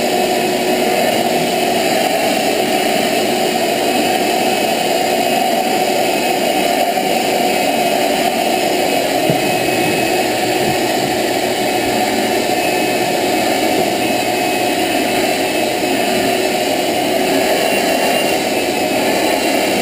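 Stainless-steel Shop-Vac wet/dry vacuum running steadily, its hose nozzle drawing air over a cat's fur. A loud, even whoosh that holds without a break.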